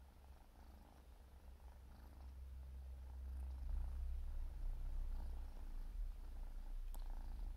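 Siberian kitten purring: a low, steady rumble that grows louder about three seconds in, with one short click near the end.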